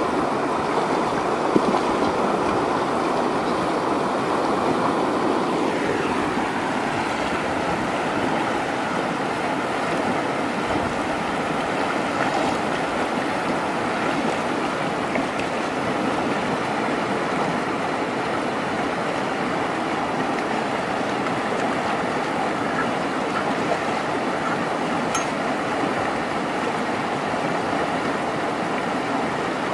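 Shallow rocky stream rushing over and between boulders: a steady, even water noise.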